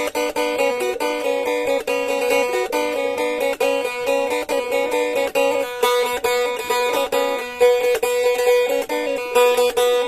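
Blaan faglung, a hand-made two-string boat lute, plucked in a quick run of notes over a steady drone note.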